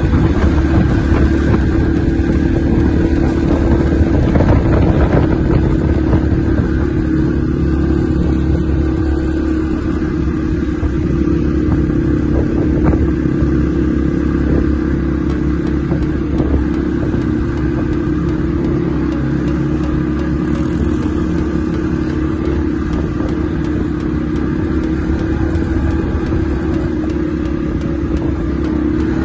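ATV engine running at a steady pitch as the quad is ridden at an even speed.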